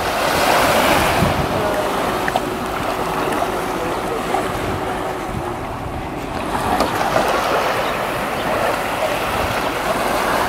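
Small waves washing onto a sandy beach, swelling about a second in and again around seven seconds, with wind on the microphone.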